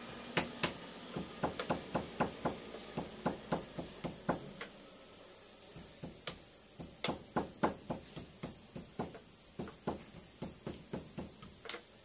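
A machete chopping in quick irregular strokes, the blade knocking against wood about two to three times a second, with a short lull about five seconds in. A steady high insect drone runs underneath.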